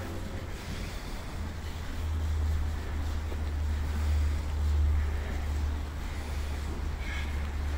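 Wind buffeting the microphone: a low rumble that swells and eases, loudest around the middle.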